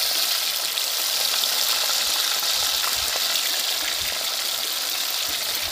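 Whole fish deep-frying in a pot of hot oil: a steady, loud sizzle.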